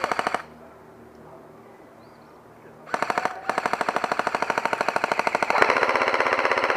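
Airsoft gun firing on full auto, a rapid even rattle of shots. A burst ends just after the start; after a pause of about two and a half seconds a long continuous burst begins, briefly broken, and grows louder about halfway through.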